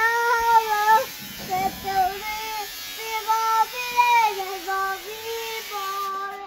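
A young child singing a wordless tune in high, held notes, phrase after phrase with short breaks between.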